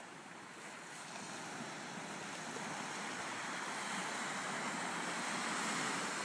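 Small surf washing onto a rocky shore, with wind. One wash builds louder over the last few seconds.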